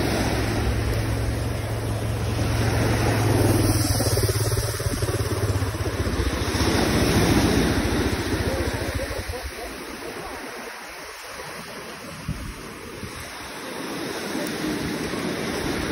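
Waves breaking and washing up a pebble beach, swelling and easing over several seconds, with wind on the microphone. A steady low hum runs under the first half and then fades.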